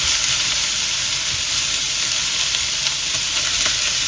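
Pork belly cubes sizzling steadily in a nonstick wok while a plastic spatula stirs them, scraping and knocking lightly against the pan.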